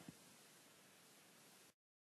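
Near silence: faint room hiss that cuts off to dead digital silence near the end.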